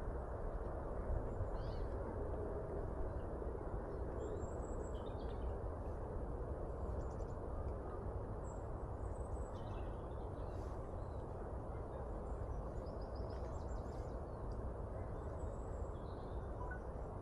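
Nature ambience: a steady low rushing noise with many brief, faint bird chirps and calls scattered through it.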